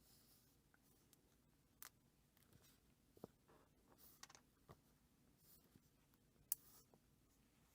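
Faint handling of loose book pages: soft paper rustles and a few small clicks and taps, the sharpest about six and a half seconds in.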